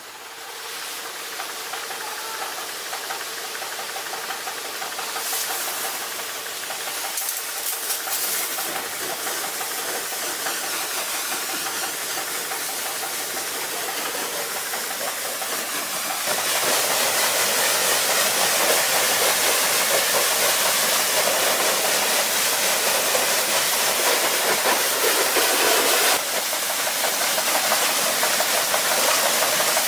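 Steady loud hiss, like air or spray under pressure. It builds over the first couple of seconds, jumps louder about halfway through, and eases back slightly near the end.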